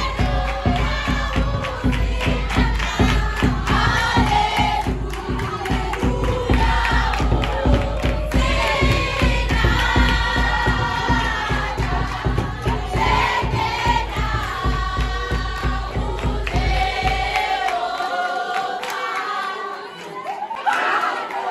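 A large crowd of schoolchildren singing together in unison, over a steady beating of a bass drum. The drum stops a few seconds before the end and the singing carries on alone.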